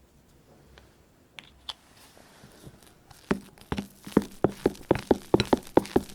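Soap-based slime being worked by hand, giving a quick run of sticky wet clicks and pops about four a second, starting about three seconds in after two faint clicks.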